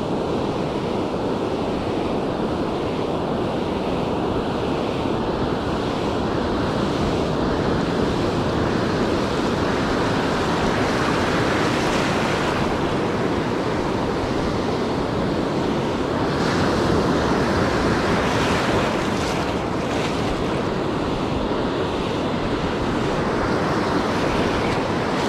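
Ocean surf washing in, a steady rush that swells a little in places, with wind buffeting the microphone.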